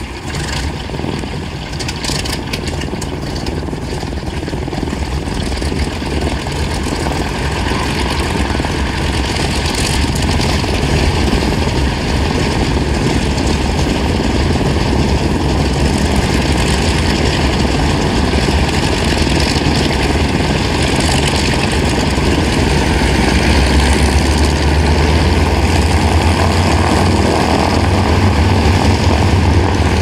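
1929 Ford Tri-Motor's three radial piston engines running with propellers turning: a steady, deep, uneven engine rumble that grows gradually louder, heaviest in the last several seconds.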